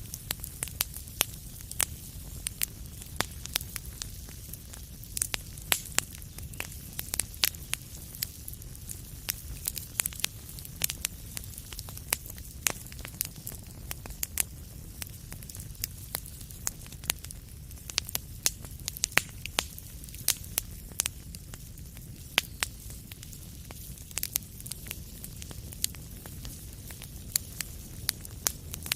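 Wood fire burning in a fireplace: a steady low rumble and hiss of the flames with frequent sharp, irregular crackles and pops.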